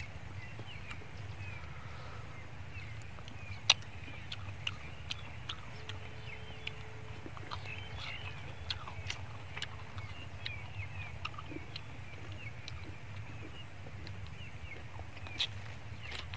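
Quiet eating sounds of steamed snails: scattered small clicks and smacks as the snails are picked out and sucked from their shells, the sharpest about four seconds in. Under them a steady low rumble and many faint birds chirping.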